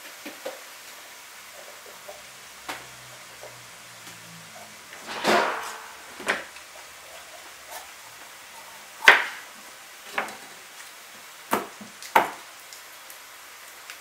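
Kitchen knife cutting a red capsicum on a plastic chopping board: a handful of sharp, separate knocks as the blade goes through and hits the board, the loudest about nine seconds in.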